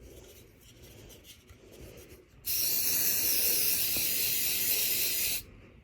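Light handling rustles, then an aerosol can of smoke-detector test spray hissing in one steady burst of about three seconds, starting a couple of seconds in and cutting off suddenly, sprayed to set off a smoke alarm under test.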